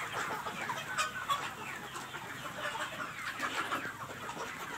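A large flock of desi (native) chickens clucking, with many short calls overlapping into a continuous chorus and a couple of sharper calls about a second in.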